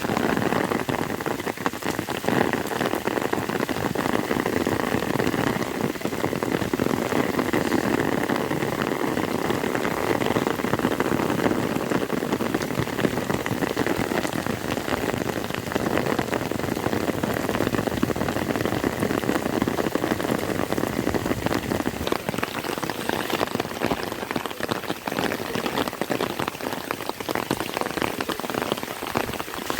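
Heavy rain falling steadily, a dense, continuous patter of drops.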